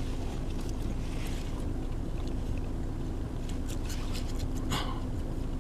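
Steady hum of a car running with its heater on, heard from inside the cabin, with faint small clicks and rustles over it.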